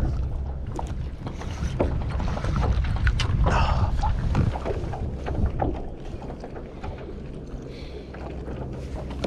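Wind buffeting the microphone on a kayak, a steady low rumble, with scattered small knocks and clicks from the boat and fishing gear. It is louder for the first four or five seconds, then eases.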